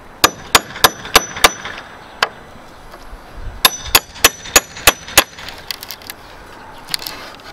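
Hammer striking a steel cat's paw nail puller, driving it into a wooden stud to dig under a nail head: a run of five sharp metal-on-metal blows, a single blow, then a run of six, about three a second, each with a short metallic ring.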